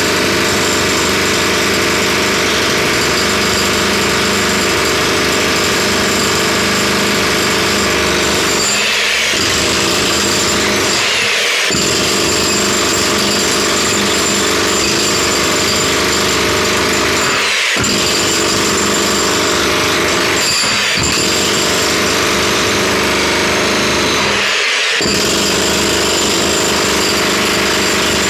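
Jackhammer hammering continuously, broken by a few short pauses, as it breaks a hole for a drainage pipe.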